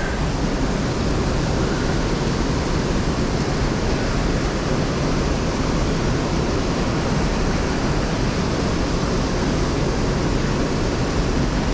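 Steady rushing of a fast river current, a loud even wash of water noise with no breaks.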